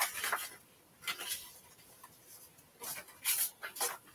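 Scissors snipping through a paper decor transfer sheet: a handful of short, irregular snips with paper rustling between them.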